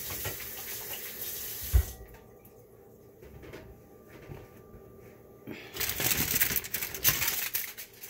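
Water running from a kitchen sink tap as hands are washed, shut off with a knock about two seconds in. A few seconds later comes a short burst of rustling and clattering handling noise.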